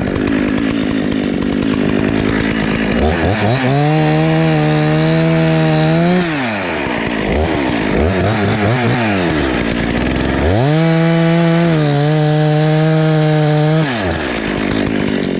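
Husqvarna two-stroke chainsaw idling, then revved up to full throttle and held for a few seconds twice, with a couple of short blips in between, as it cuts into a tree.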